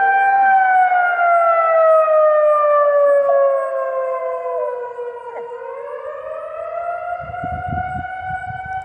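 Outdoor warning siren wailing, its pitch sliding slowly down and then climbing back up, during a monthly siren test, with a dog howling along to it.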